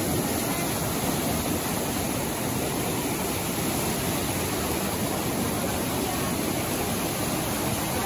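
Fast-flowing creek water rushing over rock slabs and small cascades, a loud, steady, even rush.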